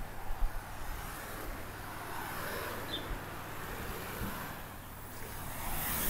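Outdoor background noise of road traffic passing in the distance, swelling slightly twice, over a faint low hum.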